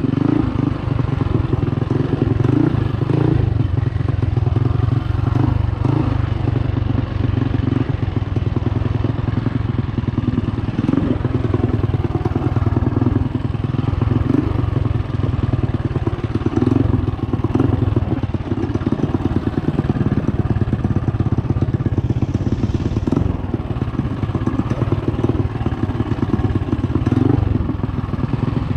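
Trailmaster MB200 mini bike's modified Predator 212cc Hemi single-cylinder four-stroke engine running steadily at riding speed, with small rises and dips in throttle, as the bike rolls over a rough dirt trail.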